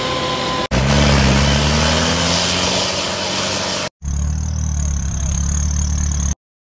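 Off-road 4x4 engines under heavy throttle on a steep muddy climb, heard in quick cuts: one engine's note rises as it revs up, then another runs hard at steady high revs with a thin high whine. The sound cuts off to silence near the end.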